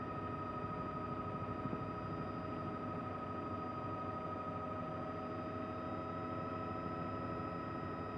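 Steady helicopter noise heard from on board: a constant whine over an even rushing drone.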